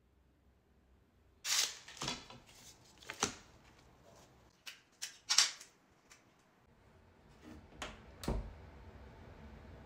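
Stiff paper being handled: a run of sharp crinkles and snaps as a large print sheet is smoothed and moved, with a low thump about eight seconds in.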